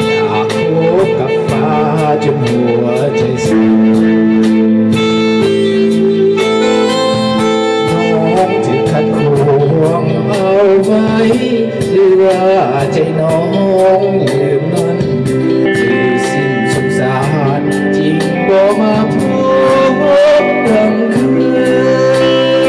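Live band music: a Korg keyboard and an electric guitar play chords over a steady beat of about two strokes a second, with a voice singing a wavering melody line.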